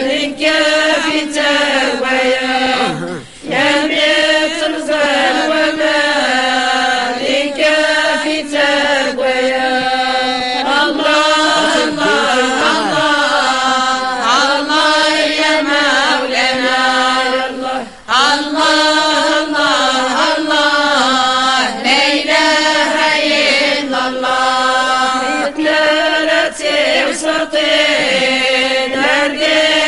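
A group of women chanting Amazigh madih, devotional praise songs for the Prophet, together in long melodic phrases. There are short pauses for breath about three seconds in and just past the middle.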